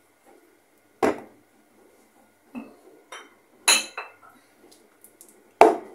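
Bottles and jars knocking and clinking against each other on a kitchen shelf as they are rummaged through and one is pulled out. About five separate sharp knocks, the loudest near the end.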